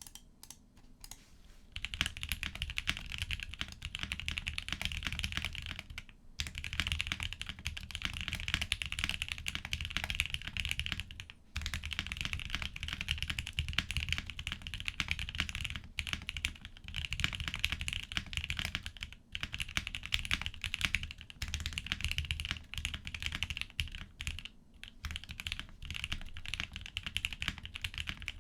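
Fast, steady typing on a foamless, top-mount mechanical keyboard with lubed Gateron Milky Yellow Pro linear switches, a POM plate and Drop DCX keycaps. The typing starts about two seconds in and pauses briefly a few times.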